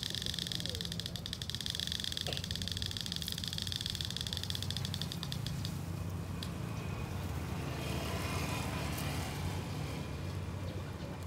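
A flock of feral pigeons feeding on scattered corn, with wing flaps among them. A steady high buzz fades out about six seconds in.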